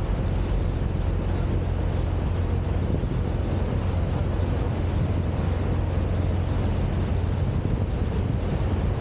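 A boat's engine running steadily as a low hum, with wind buffeting the microphone over it.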